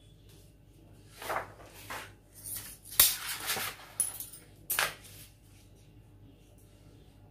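A sheet of pattern paper rustling as it is lifted, turned over and smoothed flat, in several short swishes, with one sharp click about three seconds in.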